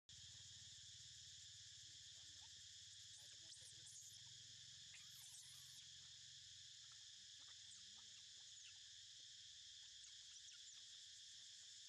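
Faint steady drone of insects, crickets or cicadas, with a few faint short high chirps around the middle.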